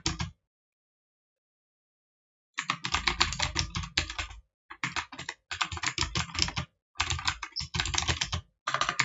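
Typing on a computer keyboard: a brief clatter of keys at the very start, about two seconds of silence, then fast runs of keystrokes broken by short pauses.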